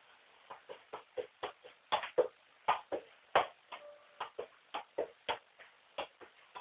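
Quick run of sharp knocks, about four a second and uneven in loudness: a football being struck repeatedly by foot.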